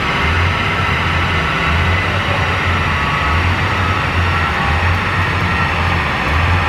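Toyota Corolla AE86 engine running at steady revs on a dyno, with no revving up or down. Under it is a low throb that swells and fades unevenly about once a second.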